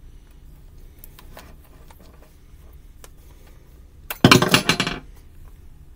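Metal beaters clattering out of a corded hand mixer as they are ejected: a few faint handling clicks, then a short loud rattle of metal under a second long, about four seconds in.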